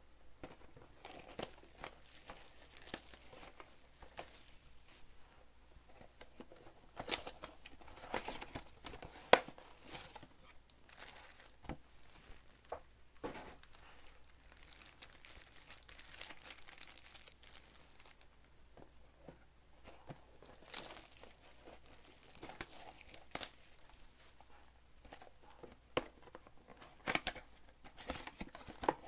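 Foil trading-card packs crinkling and rustling as they are handled, with short tearing sounds and light knocks of the cardboard card boxes. There is one sharp click about nine seconds in.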